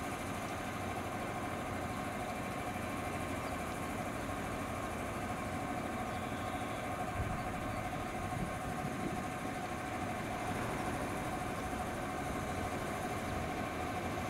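JR West 213 series electric train standing at the platform, its onboard equipment running with a steady hum and a faint constant whine.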